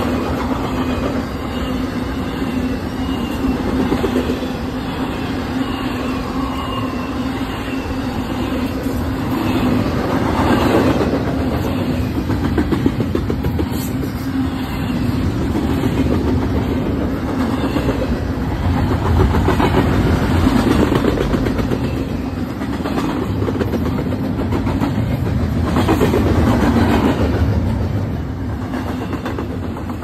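Intermodal freight train's double-stack container cars and trailer flatcars rolling past close by: a steady, loud rumble with clickety-clack of the wheels, easing off near the end.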